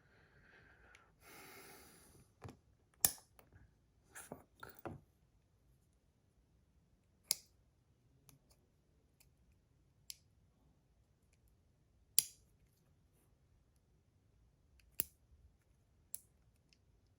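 Sharp, irregular clicks of the small metal parts and magnets of a Panda magnetic fidget slider being handled and fitted, one every second or two, with a short scraping rub about a second in.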